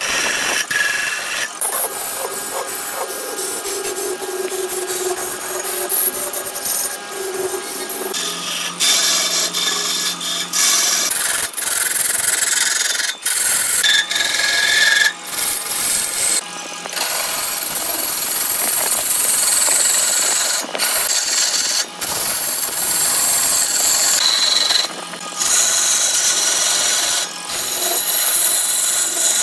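Hand-held turning tool cutting a large block of wood spinning on a lathe: a continuous harsh scraping hiss of shavings being peeled off, broken by several short gaps.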